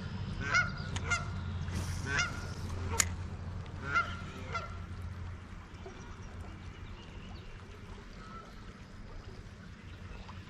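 Honking bird calls, likely geese, about six short calls in the first five seconds and then dying away, over a steady low rumble.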